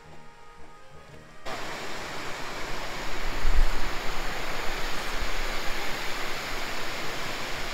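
Edited-in background music for about the first second and a half, then a cut to the steady rush of river water pouring over a low concrete weir. A brief low rumble comes about three and a half seconds in.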